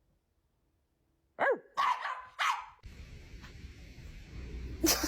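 A dog barking three times in quick succession, each bark short and arching in pitch. A steady background hiss follows, with a loud sudden sound near the end.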